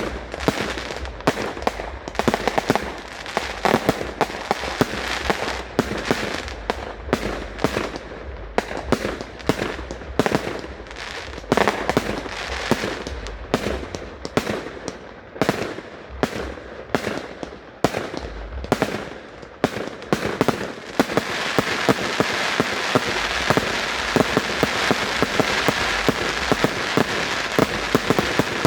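Fireworks display: a rapid run of bangs and pops, then about 21 seconds in a dense, continuous crackle takes over at a steady level.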